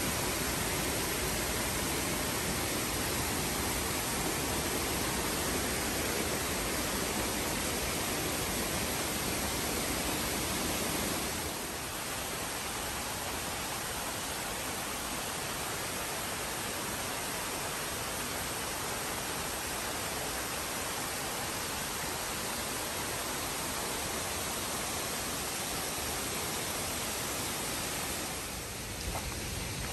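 Steady rushing of water from a creek cascading over rocks, an even hiss that drops a little in level about twelve seconds in.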